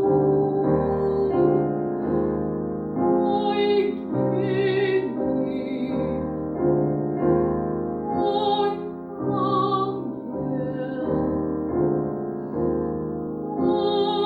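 Classical piano music with chords changing about every two-thirds of a second, and a voice singing over it in operatic style.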